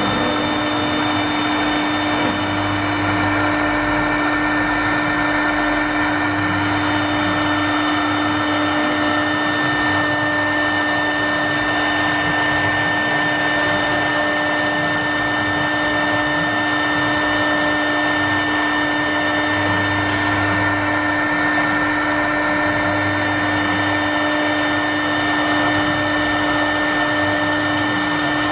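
CNC router's electric spindle running at a steady whine while its bit engraves lines into a wooden board, with the hiss of the cut mixed in. A low hum swells and fades a few times as the machine moves.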